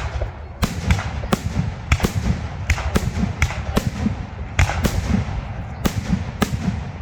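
Fireworks display: aerial shells bursting in a rapid, irregular series of sharp bangs, about one or two a second, over a continuous low rumble of echoing booms.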